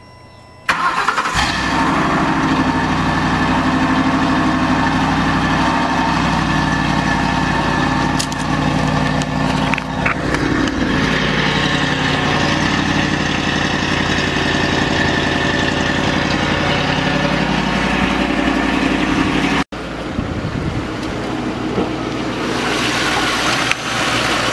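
2007 Lincoln Town Car's 4.6-litre V8 starting under a second in and then idling steadily, through an exhaust with all four catalytic converters cut out but the factory H-pipe and mufflers still in place. Near the end the sound briefly cuts out, then the idle goes on a little quieter.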